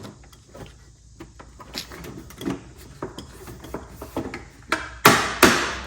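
Plasma cutter parts being worked into place by hand: a string of small clicks and knocks, then two loud, short bursts of noise about five seconds in as the part goes home.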